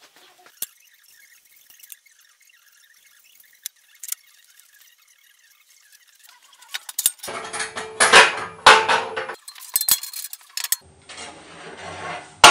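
Square-tube steel saw horses being moved on a concrete floor: a few faint metal clicks, then two spells of loud scraping with clinks, the first about seven seconds in and the second about eleven seconds in.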